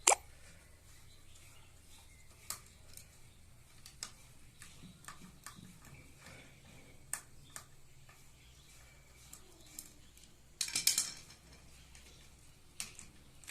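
Scattered metallic clicks and clinks of small parts and tools being handled while a washing machine's carbon-brush motor is taken apart to get at its brushes. A sharp click comes right at the start, and a short burst of louder clattering comes near the end.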